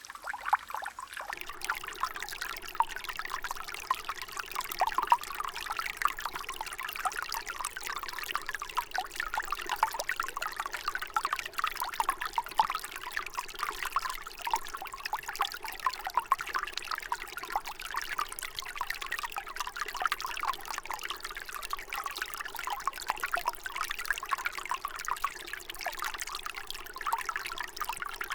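Water pouring in a steady trickle, a dense continuous patter of small splashes.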